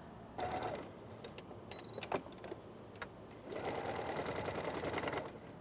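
Sewing machine stitching around the edges of two fabric strips, in a short run and then a longer steady run of about two seconds near the end, with a single click between.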